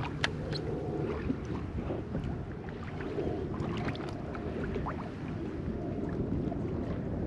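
Steady wind and water noise around a fishing kayak on open saltwater, with scattered light clicks and knocks.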